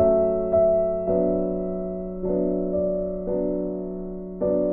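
Slow background piano music: a note or chord is struck about once a second and left to ring and fade.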